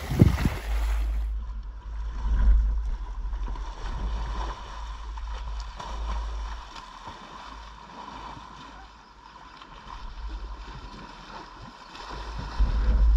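Water splashing and churning around a freestyle kayak as it cartwheels on flat water, over a steady low rumble. A sharp knock at the very start, and the splashing swells about two seconds in and again near the end.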